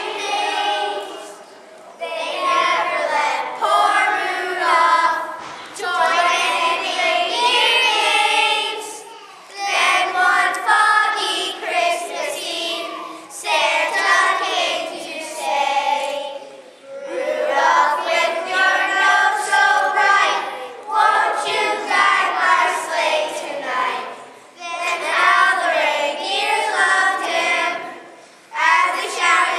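A group of young children singing together, in phrases of a few seconds with short breaks between them.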